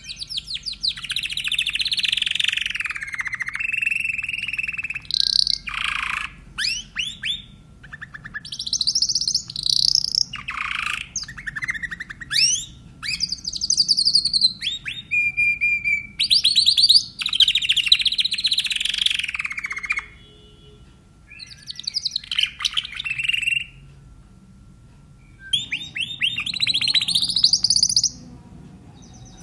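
Spanish Timbrado canary singing: long phrases of fast rolling trills and sweeping notes, broken by two short pauses in the last third.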